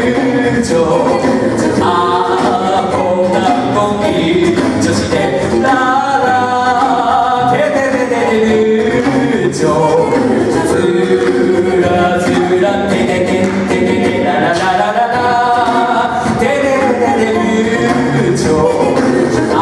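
A six-member a cappella group singing in several voice parts, voices only with no instruments.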